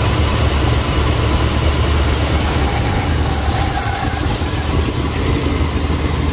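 Oldsmobile 307 V8 in a 1988 Cadillac Brougham, with a Quadrajet carburettor, running at a steady idle while Sea Foam cleaner is drawn into the engine.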